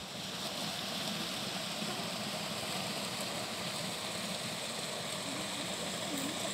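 Water pouring steadily from a spout in a stone water channel, a constant rushing.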